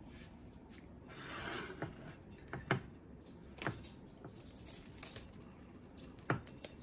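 Hands pulling apart soft, frosted cinnamon rolls on a plate: faint handling sounds in a quiet room, with a few light clicks and taps.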